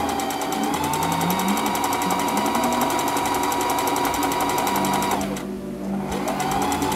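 Electric home sewing machine stitching through doubled hair wefts: the motor runs with a fast, even stitching beat, speeds up about a second in, stops briefly about five seconds in, then starts again and picks up speed near the end.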